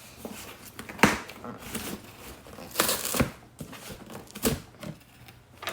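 Packaging being handled and opened: irregular crinkling and rustling with a few sharp knocks, the sharpest about a second in.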